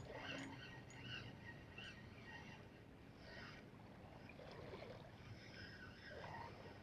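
Near silence: faint lapping of sea water at the shore.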